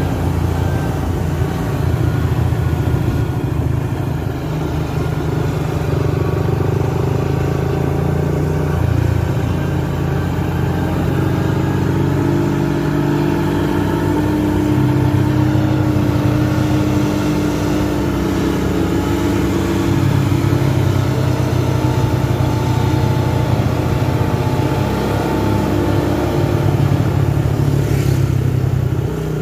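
Truck engine running steadily in a low drone, its pitch shifting slightly. There is one short click near the end.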